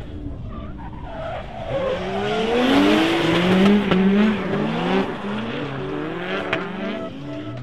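Drift cars' engines revving up and down hard, with tyre squeal, as two cars slide through a corner in tandem; loudest in the middle. Music with a steady rhythm comes back in near the end.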